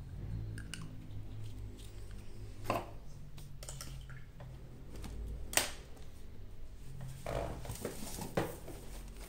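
Painting supplies being handled on a worktable: scattered clicks and knocks, two sharper ones about three seconds and five and a half seconds in, then a stretch of rustling near the end, over a low steady hum.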